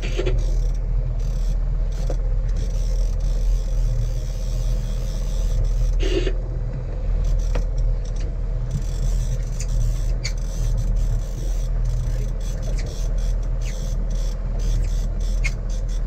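A boat's engine running steadily with a low drone, with scattered short clicks and knocks over it.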